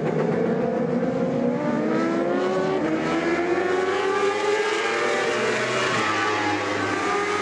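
Endurance racing motorcycle engines at high revs, several bikes overlapping, their pitch climbing as they accelerate.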